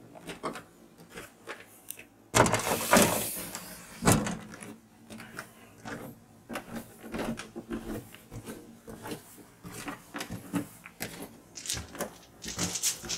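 Footsteps going down wooden stairs, with irregular knocks and creaks and close rustling handling noise as a kitten is carried. A louder scrape comes about two and a half seconds in, and a sharper knock about four seconds in.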